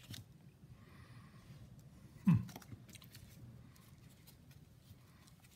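Baseball trading cards being handled and flipped through: light clicks and rustles of card stock, with one brief, louder low sound that falls in pitch about two seconds in.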